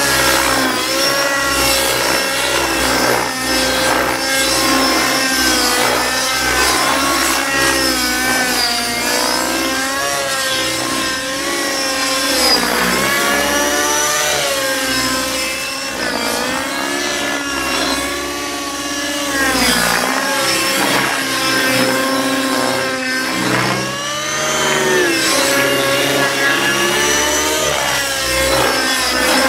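Align T-Rex 600 Nitro radio-control helicopter in aerobatic flight, its nitro glow engine and rotor running loud and steady. The engine's pitch keeps rising and falling, dipping and swinging back up several times.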